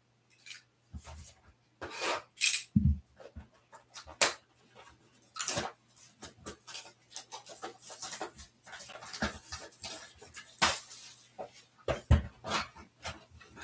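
Plastic shrink wrap being torn and crinkled off a sealed trading-card hobby box: irregular crackles and rustles with a few sharper snaps.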